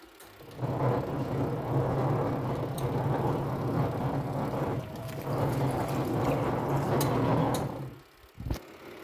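Twin tub washing machine running its wash cycle with a steady rumble and low hum: the rumbling noise that is the machine's complaint. It starts about half a second in, dips briefly near the middle, and stops shortly before the end.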